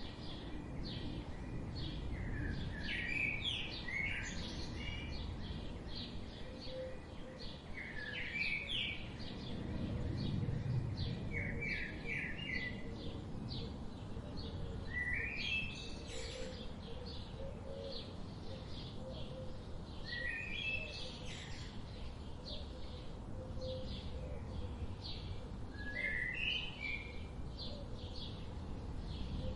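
Several wild birds chirping. Many quick high chirps run throughout, and one bird repeats a short falling phrase every four to six seconds, over a low steady background noise.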